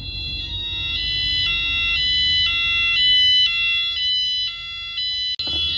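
Fire alarm sounder sounding a two-tone alarm that alternates about every half second, with a brief dropout near the end; this is the newly fitted sounder base under the replacement smoke detector.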